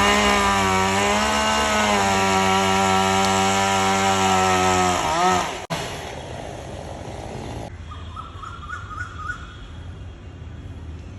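Chainsaw running at full throttle, its pitch sagging slightly now and then under load as it cuts through the tree. It cuts off abruptly a little over five seconds in, leaving quieter background noise with a faint whine.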